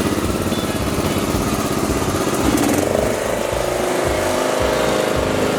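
Riding lawn mower's Briggs & Stratton engine running under load, its pitch rising about three seconds in and then holding steady.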